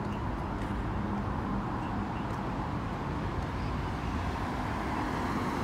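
Steady road traffic noise: cars driving past on a street.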